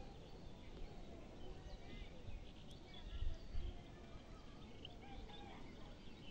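Small birds chirping and twittering over a low, uneven rumble that swells briefly about three seconds in.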